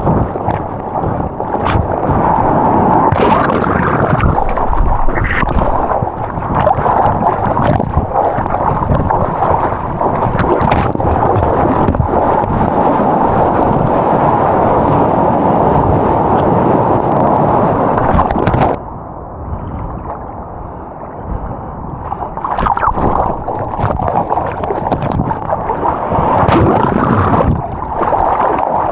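Sea water rushing and sloshing close around a camera out in the surf, with splashy crackles. About two-thirds through it turns muffled and quieter for a few seconds, then comes back.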